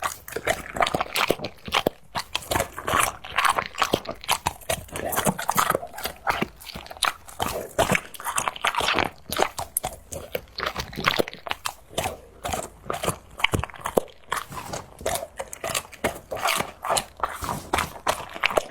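A dog chewing and crunching on a large bone: a rapid, irregular run of cracks and crunches that keeps going without a break.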